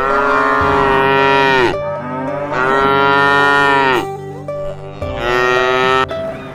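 Cow mooing three times, long calls that each drop in pitch at the end, the last one shorter, over background music.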